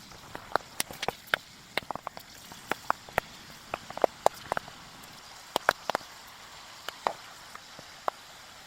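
Flour-coated chickpeas cooking in a pan: scattered sharp pops and clicks, a few each second, over a faint steady hiss.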